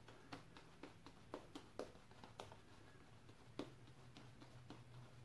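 Faint, irregular soft clicks and crackles of a natural-hair shaving brush working soap lather over stubbled skin, over a faint low hum.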